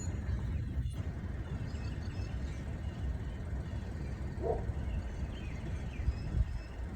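A steady low rumble with faint bird chirps over it, and one brief higher call about four and a half seconds in.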